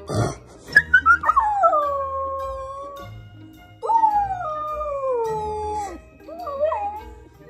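Young husky howling: two long howls that start high and slide down in pitch, then a shorter wavering howl near the end, over background music.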